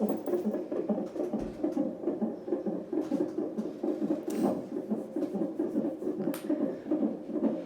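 Fetal heartbeat picked up by a CTG monitor's Doppler ultrasound transducer: a fast, even pulsing of two to three beats a second. Two short clicks cut in, about four and a half and six and a half seconds in.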